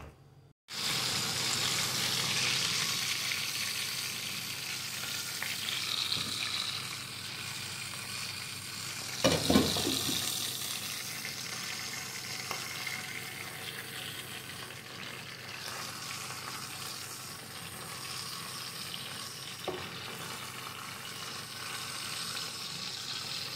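Fish frying in hot oil in a pan: a steady sizzling hiss, with one brief louder bump about nine seconds in.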